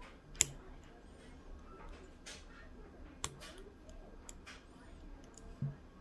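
Hook pick and tension wrench working the pins inside a Matlock 2538 padlock: scattered small metallic clicks and scrapes, the sharpest click about half a second in and another about three seconds in, then a short dull knock near the end.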